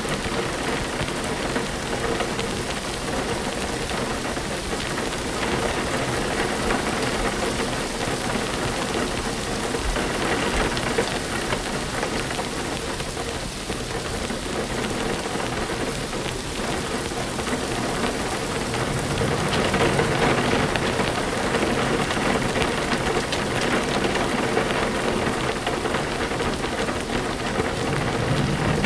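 Steady rain falling, as an even hiss. A low rumble builds underneath about nineteen seconds in and holds.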